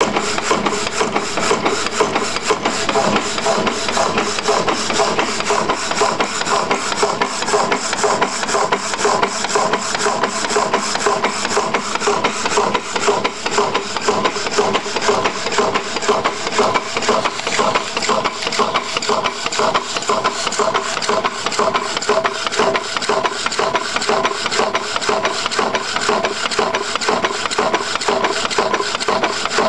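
Antique Peerless High Speed power hacksaw cutting through a 6-inch solid steel bar, its blade rasping back and forth through the metal in a steady, continuous rhythm of strokes.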